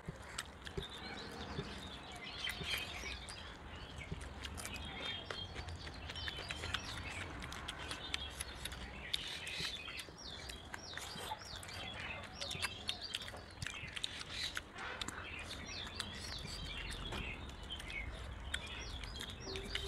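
Birds chirping repeatedly in the background, over short clicks and smacks of eating by hand: fingers mixing rice on plates and chewing.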